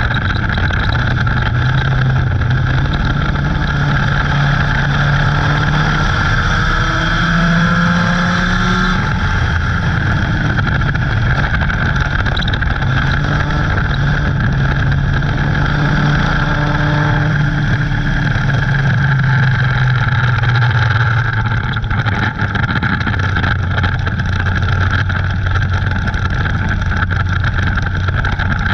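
Dirt-track race car's engine running hard under racing throttle, heard from inside the cockpit, its note shifting in pitch several times as the throttle comes on and off through the turns.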